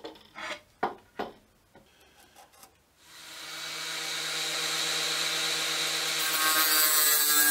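A few light knocks of tools and metal being handled, then about three seconds in an angle grinder with a thin cutoff disc starts up and spins up to a steady high whine. From about six seconds in a harsher hiss joins as the disc begins cutting the steel linear bearing rail to length.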